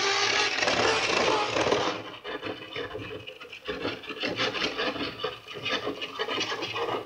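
Small DC motor turning a worm gear against the teeth of a plywood gear wheel: a loud wooden rasping and rubbing for about the first two seconds, then quieter, broken into many fast ticks as the teeth mesh.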